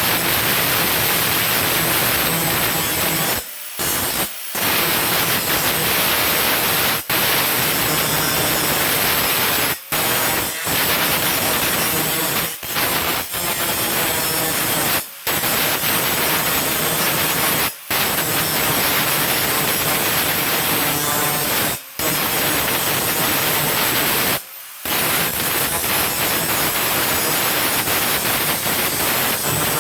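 Arc welder's arc crackling and hissing steadily as thin sheet-metal patches are welded on. The arc breaks off sharply for a moment every two to three seconds and is struck again, stitch-welding so the thin metal doesn't melt through.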